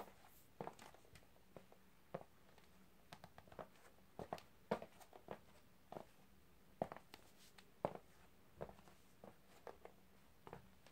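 Ballet flats stepping on a hard wood-look floor: quiet, irregular taps and scuffs, about one or two a second.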